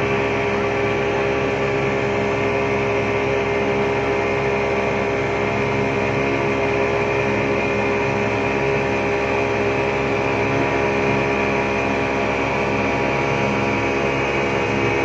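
Yamaha 200 hp outboard motor running steadily at speed, pushing a speedboat along, with a constant engine drone over the rush of water and wind.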